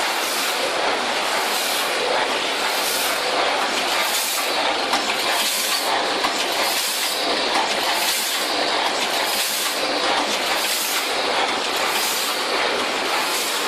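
Rotary premade-pouch filling and sealing packing machine running: a steady mechanical clatter, with a high-pitched swell repeating about once a second as it cycles.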